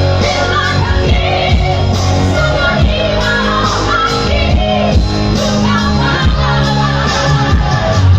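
A woman singing a Batak song over band accompaniment, with steady bass notes, chords and a beat.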